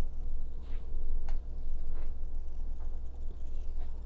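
A few faint clicks and scrapes as a quesadilla is turned over with a fork in a nonstick frying pan, over a steady low hum.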